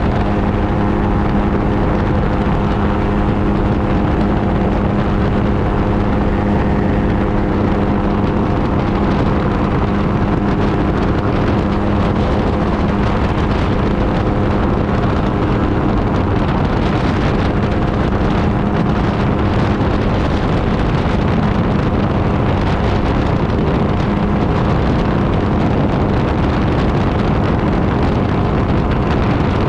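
Aerolite 103 ultralight's engine and propeller droning at a steady pitch in cruise, with wind rushing over the open cockpit.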